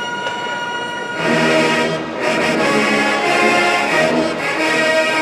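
College marching band's brass section coming in loudly about a second in with full sustained chords, breaking off briefly and then holding the next chord.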